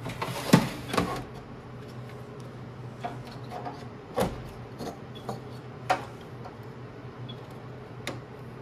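A heavy UPS battery pack in a metal tray is pushed home into the UPS chassis, with a scrape and two loud knocks in the first second. A few single clicks and knocks follow a few seconds apart as hands work among the cables and connectors, over a steady low hum.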